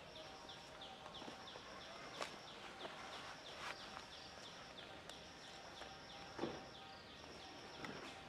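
Outdoor wildlife ambience: a steady run of short, high downward chirps, about five a second, with a high steady tone that comes and goes in stretches of about a second. A few soft knocks are scattered through it, the loudest about six and a half seconds in.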